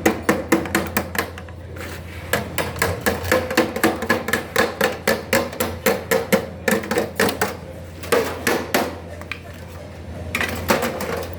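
Hammer striking a sheet-metal air-conditioning duct in quick runs of blows, about three or four a second, with short pauses between runs.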